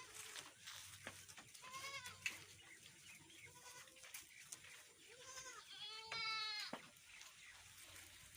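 Young goat kids bleating: short, arching calls every second or two, with a longer, louder bleat a little after six seconds in.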